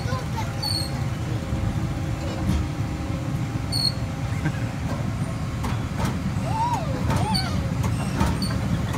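Steady low rumble of a Frog Hopper kiddie bounce ride running. A child's voice rises and falls twice in short whoops about six to seven seconds in.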